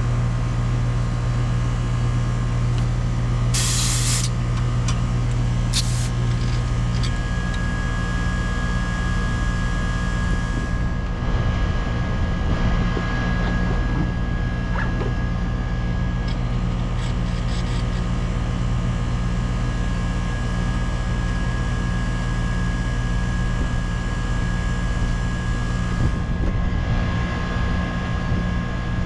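Air-conditioning condenser unit running, a steady electrical and mechanical hum from the compressor and fan. A short hiss comes about three and a half seconds in, with a few light clicks.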